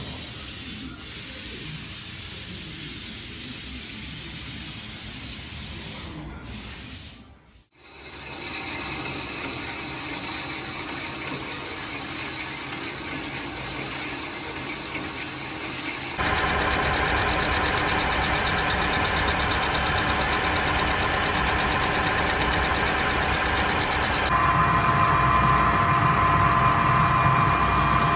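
Machine-shop machinery running steadily, in several segments that change abruptly from one to the next.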